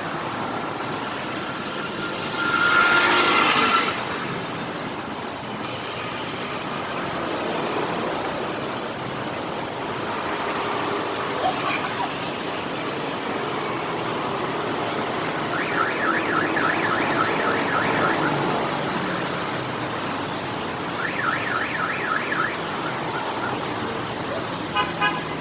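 Busy street traffic noise with a loud horn blast about three seconds in. Later a fast warbling electronic alarm tone sounds twice, for about three seconds and then just over a second.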